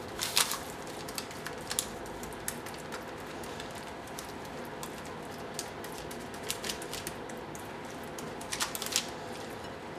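Metal spoon scraping and tapping as it spreads minced-meat filling over thin raw dough on baking paper in a baking tray: scattered soft scrapes and clicks, a few louder ones near the start and near the end, over a faint steady hum.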